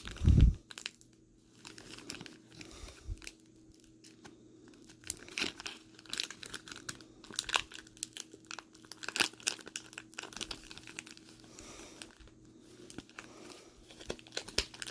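Foil Pokémon booster pack wrapper crinkling and crackling in irregular bursts as it is handled and tugged at to be torn open, with a thump right at the start.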